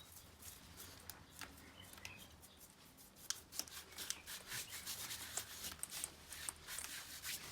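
A hand tool scraping and rubbing on a hard surface in quick, irregular strokes, which come faster and louder from about three seconds in.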